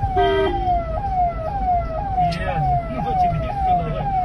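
Electronic vehicle siren sounding a fast repeating falling sweep, about two sweeps a second, with a short horn honk just after the start.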